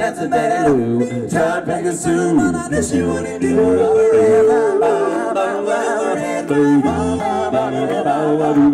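Four-man a cappella doo-wop group singing close harmony: several voices moving over a low sung bass line, with a long held note from about three and a half to five seconds in.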